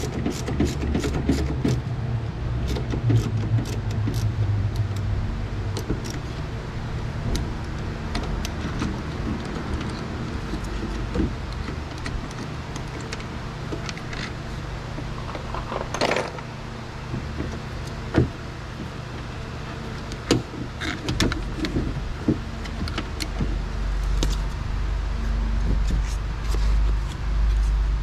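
Scattered metallic clicks, clinks and knocks of hand work on a car door and its lock parts, with a louder rustling clatter about halfway through, over a steady low hum.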